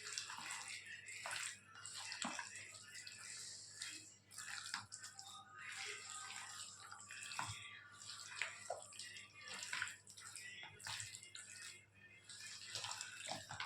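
Hands mixing raw chicken pieces into a wet masala paste in a bowl: an irregular run of wet squishing and sticky sounds as the pieces are squeezed and turned to coat them.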